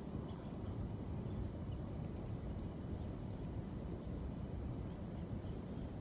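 Outdoor ambience: a steady low rumble with a few faint, high bird chirps now and then.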